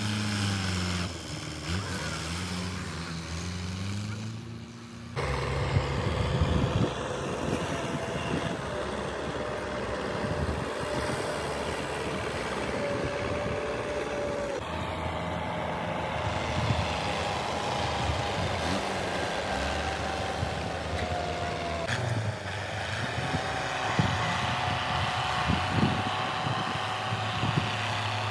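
Tractor diesel engine working the bagasse heaps, its note rising and falling at first. About five seconds in it jumps louder into a steady run with rattling noise.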